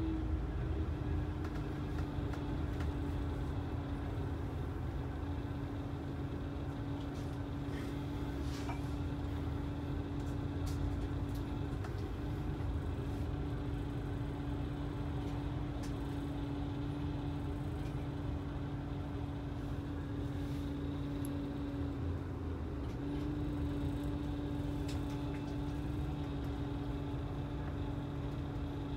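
Motor coach's engine and road noise heard from inside the passenger cabin: a steady low rumble under a steady drone that settles lower in pitch in the first second and drops out briefly a little past the middle.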